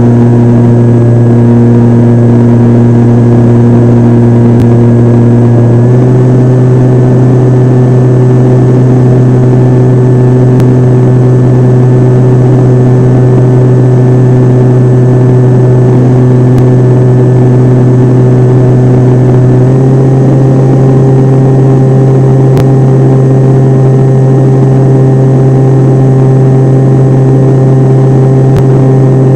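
Model airplane's motor and propeller droning steadily at a constant throttle, recorded on board. Its pitch steps up slightly twice, about six seconds in and again about two-thirds of the way through, over a steady rushing noise.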